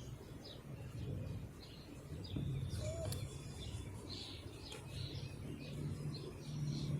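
Birds chirping and calling, many short calls scattered throughout, over a low steady hum.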